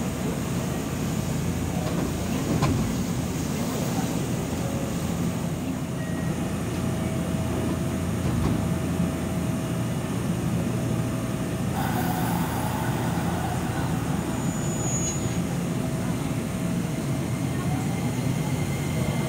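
A JR West electric commuter train standing at a platform, its equipment giving a steady low hum. About twelve seconds in a hiss of air starts suddenly and carries on, and near the end a faint rising motor whine begins as the train starts to move off.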